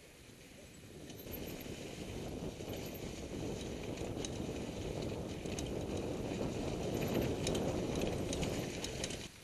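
Mountain bike riding fast down a leaf-covered dirt trail, heard from a helmet camera: a rush of wind and tyre noise that builds over the first second or two, with scattered light clicks and rattles from the bike over bumps, then drops away suddenly near the end.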